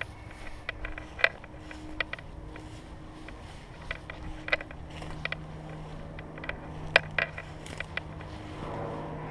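Airsoft guns firing scattered single shots, heard as sharp clicks at irregular intervals, the loudest about a second in and near seven seconds, over a low steady hum that grows a little stronger in the second half.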